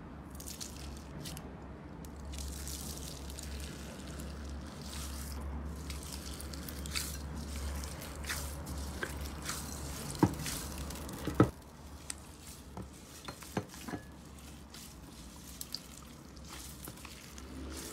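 Clear slime full of small beads being pressed and squeezed by hand: wet squishing with a constant crackle of small clicks and pops as the beads shift. Two louder, sharper pops come a little past the middle.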